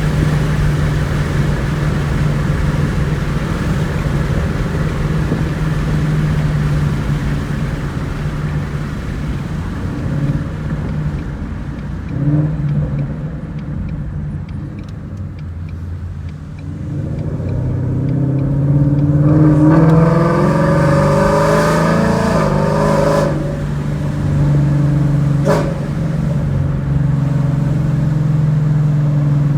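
Ford Mustang GT 5.0 V8 exhaust through long-tube headers and a Borla cat-back, idling with a steady low rumble, blipped once briefly near the middle, then revved up and held for a few seconds before dropping back to idle. A sharp snap is heard shortly after the rev.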